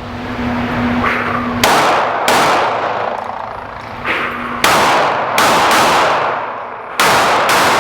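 Seven shots from a SAR 9 9mm pistol fired on the move in three strings: two, then three, then two. Each shot is followed by a long ringing tail.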